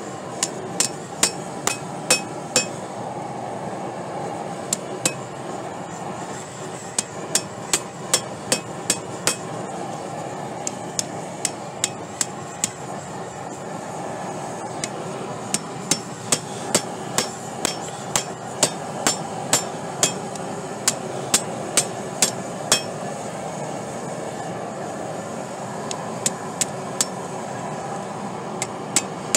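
Blacksmith's hammer striking steel tongs on an anvil while forging, in bursts of rapid blows with a short ring after each and pauses between bursts. A steady rushing noise runs underneath.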